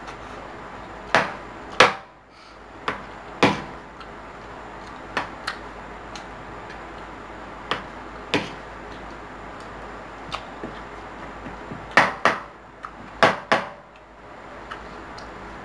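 Metal spoon and fork clinking and scraping against a plate while food is scooped up, in irregular sharp clicks that come in small clusters, a few loud ones near the start and again near the end, over a steady low hiss.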